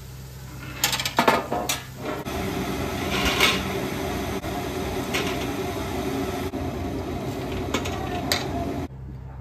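A metal baking tray clattering against a wire cooling rack, then a steady sizzle of hot frying oil with light knocks as fried potato chips are lifted with a wire spider skimmer and tipped onto the rack. The sizzle cuts off suddenly near the end.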